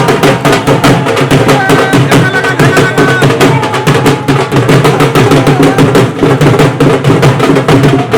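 Loud music with fast, steady drumming.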